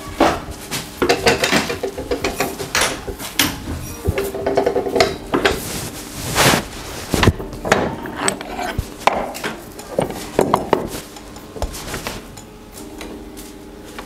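Clanking and rattling metal of a hand-operated plastic injection moulding press: the lever pulled down and the mould's screw clamp worked open, with irregular knocks and rattles that die down near the end.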